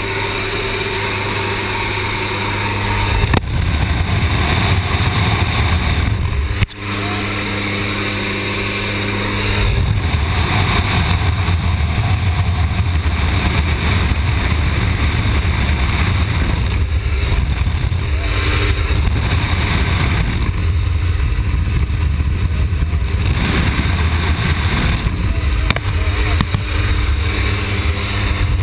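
Steady drone of a jump plane's engine heard from inside the cabin, with wind rushing past the open door. About ten seconds in the wind noise swells and covers the engine hum. Two brief knocks come in the first seven seconds.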